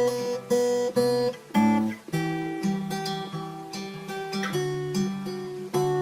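Acoustic guitar strumming chords about twice a second, the chord changing every second or two.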